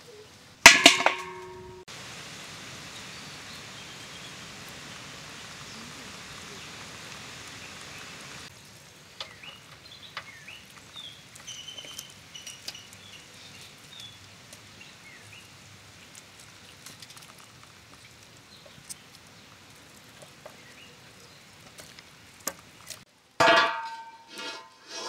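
An iron tawa set down on the stones of a wood-fire hearth near the end, clanking and ringing. Before it, a loud metallic clang with a short ring about a second in, then quiet outdoor background with small clicks and faint high chirps while meat is pulled from the bone by hand.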